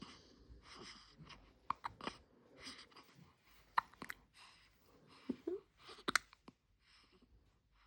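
A newborn baby's close, soft breathing and mouth noises: short breathy puffs and little wet clicks and smacks, with one brief low squeak or grunt about five and a half seconds in.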